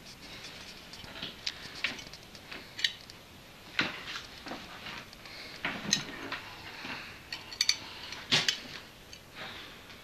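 Scattered taps, clicks and rustles of handling and movement, irregular and with no rhythm, the sharpest coming near the middle and about three-quarters of the way through.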